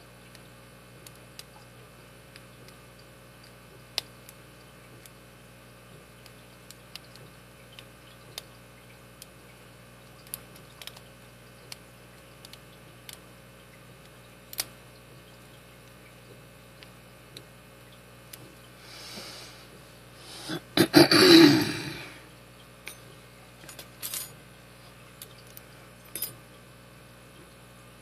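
Faint, scattered clicks of a steel lock pick and tension wrench working the pin stack inside a brass Master Lock V-line padlock. About two-thirds through comes a louder metallic jangle lasting a second or so, as the tools and lock are handled.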